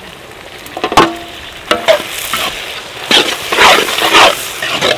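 Metal spatula scraping and knocking against an iron kadai as frying tomatoes and onions are stirred, over a steady sizzle. A couple of sharp knocks come about a second in, then a quicker run of scraping strokes in the second half.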